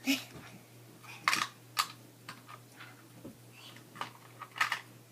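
Small plastic toy dishes and pots from a Barbie kitchen set clicking and clacking against each other as they are packed away, in several separate sharp clacks, the plainest about a second in, near two seconds and near the end.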